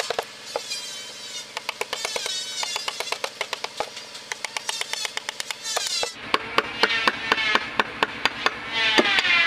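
A carving chisel being tapped into wood with a mallet: quick, irregular sharp taps, several a second.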